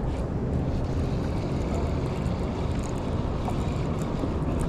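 Strong wind rumbling steadily on the microphone.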